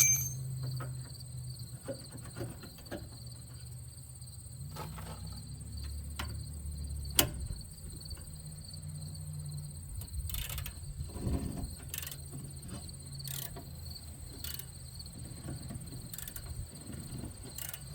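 Insects trill steadily at a high pitch. Scattered clicks and knocks come from the work, with one sharp knock about seven seconds in, over a low hum that fades after the first several seconds.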